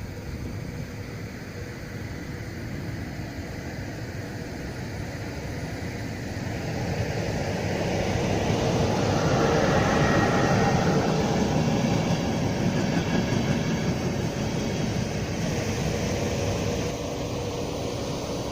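A train passing along the line. Its running noise builds to a peak about ten seconds in, then eases off.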